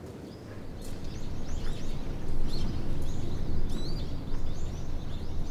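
Outdoor ambience of birds chirping in short repeated calls over a steady low rumble, fading up about a second in.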